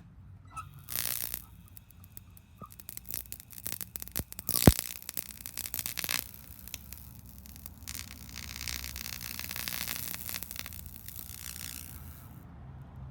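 Carbon arc between carbon brushes crackling and sputtering in irregular bursts, with one sharp snap about four and a half seconds in and a steadier hiss from about eight to eleven seconds.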